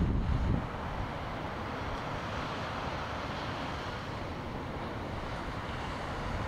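Wind buffeting the microphone, easing about half a second in to a steady rushing hiss of wind and water, with the buffeting picking up again near the end.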